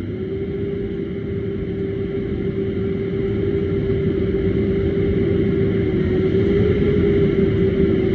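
Heavy machine running under hydraulic load: a whine that glides up just at the start and then holds one steady pitch over an engine rumble, growing slowly louder.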